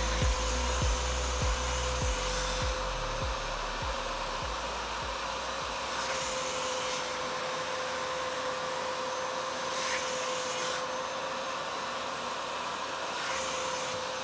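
Upholstery extractor running, its clear hand nozzle drawn over a cloth car seat to suck up cleaning solution and dirt. A steady motor whine sits under a rushing suction hiss that changes every few seconds as the nozzle moves. A faint music beat fades out over the first few seconds.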